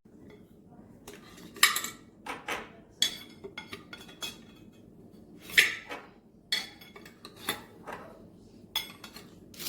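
Irregular clinking and clattering of hard objects being handled, with the loudest knocks about one and a half and five and a half seconds in.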